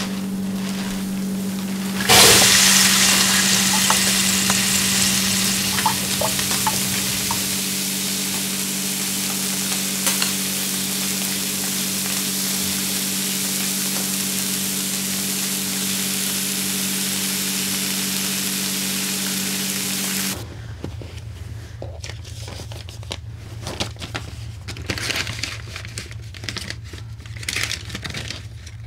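Food dropped into hot oil in a commercial kitchen, starting with a sudden loud sizzle about two seconds in that goes on steadily over a constant hum. Near the end it cuts to a quieter stretch of soft paper rustling, banknotes handled at an envelope.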